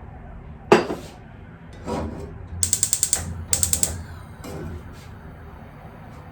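A sharp knock, then two short runs of rapid ratcheting clicks, about ten a second, with a steady low hum underneath.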